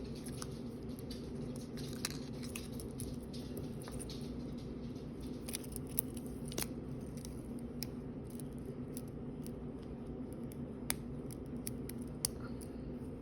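Scattered light clicks and taps of hands handling a wristwatch and its packaging, over a steady low hum.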